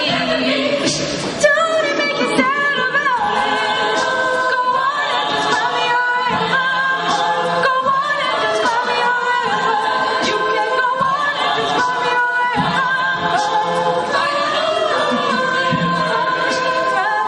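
Mixed male and female a cappella group singing in close harmony, with a steady beat under the held chords.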